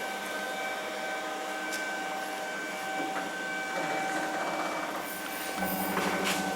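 A vertical CNC cutting machine running with a steady motor whine. A lower hum joins in about five and a half seconds in.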